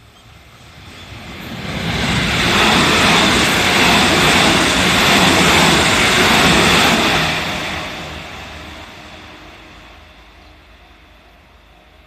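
JR Central 313 series electric multiple unit passing close by on ballasted track: the wheels running on the rails build up, stay loud for about five seconds as the cars go past, then die away.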